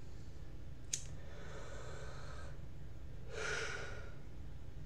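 A man breathing in a pause between sentences: a sharp click about a second in, then two audible breaths, the second one louder. A steady low hum runs underneath.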